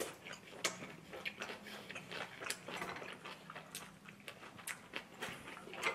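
Close-miked eating: quiet chewing of a mouthful of rice with soybean-paste stew, with many small irregular wet mouth clicks.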